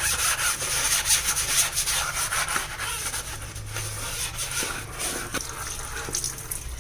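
Scouring pad scrubbing a sheet, a fast run of rubbing strokes.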